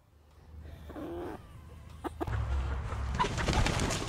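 Chickens clucking: a short call about a second in, then after a cut a louder stretch of clucking and calls over a low rumble. The hens are calling in alarm after an eagle flew over.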